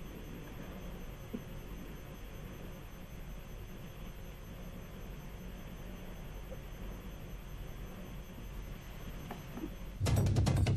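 Faint steady hiss with a thin, steady high-pitched tone. About ten seconds in, much louder news-bulletin music with drum hits cuts in.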